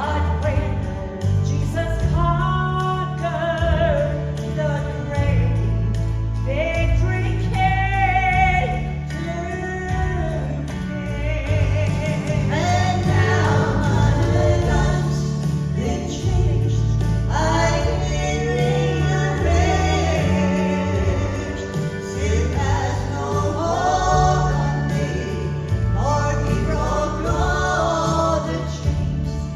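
Three women singing a gospel song in harmony over instrumental accompaniment with a bass line.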